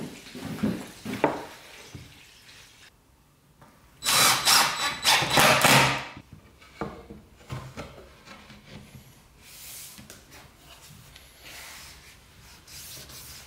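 DeWalt cordless drill/driver running in a burst of about two seconds, about four seconds in, driving a screw through a metal drawer slide into wood. Softer clicks and rubbing come before and after it.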